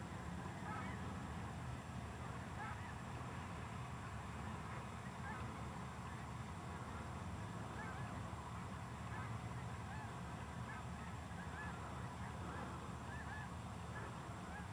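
Faint honking of a flock of geese, many short overlapping calls scattered throughout, over a steady low rumble.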